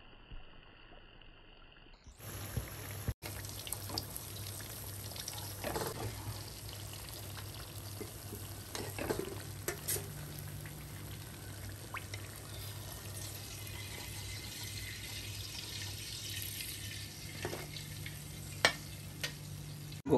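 Faint quiet for about two seconds, then gujiyas deep-frying in hot oil: a steady sizzle with scattered crackles and pops, over a low hum.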